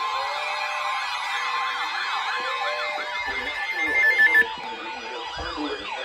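Siren-like electronic tones: several overlapping wails sweeping rapidly up and down in pitch, with a steady high tone that cuts off suddenly about four and a half seconds in.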